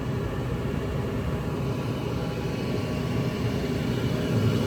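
Goodman gas furnace running on heat: the burners and draft inducer motor make a steady low rumble, growing a little louder near the end.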